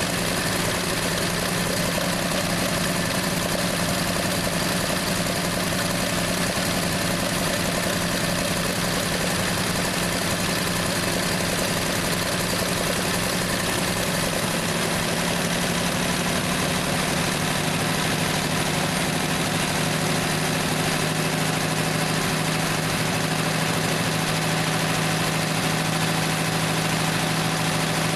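1968 Plymouth Valiant's slant-six engine idling steadily.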